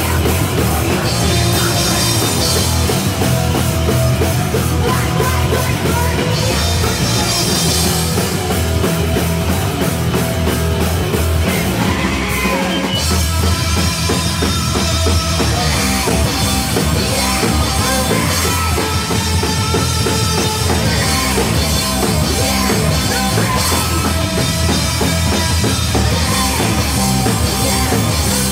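Live band playing loud in a small club: a pounding drum kit with crashing cymbals and electric guitars, with a vocalist on the microphone. The cymbals drop out briefly about twelve seconds in, then the full band carries on.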